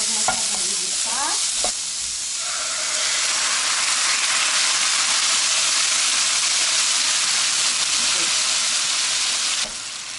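Food frying in a skillet: onions and garlic sizzling while a utensil clicks and scrapes against the pan. A couple of seconds in, a louder, steady sizzle takes over as sardines in tomato sauce fry, and it drops off suddenly near the end.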